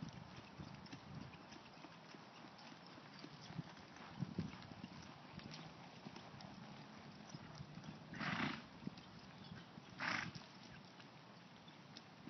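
A two-year-old horse loping on soft arena dirt, its hoofbeats faint and muffled. Two short breathy snorts come about two seconds apart, the first about two-thirds of the way through, and these are the loudest sounds.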